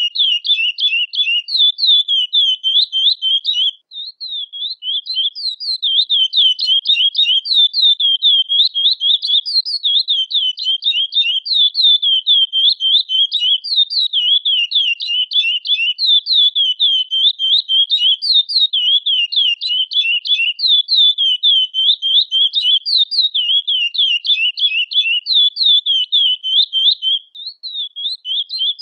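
Curió (chestnut-bellied seed finch, Sporophila angolensis) singing: a long, unbroken run of rapid, high, sliding notes, many each second. The song breaks off briefly about four seconds in and again near the end.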